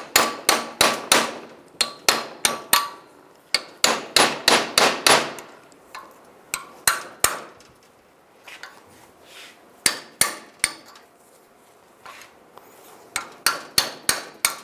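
Hammer striking a chisel to drive a worn bushing out of a door hinge, metal on metal, with a ringing note. The blows come in quick runs of several a second, thin out to a few scattered strikes in the middle, then pick up again near the end.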